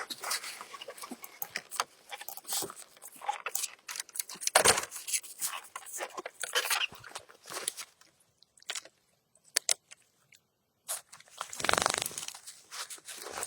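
Dog gnawing and chewing, with irregular crunching and tearing sounds. There is a pause of a couple of seconds past the middle and a louder burst near the end.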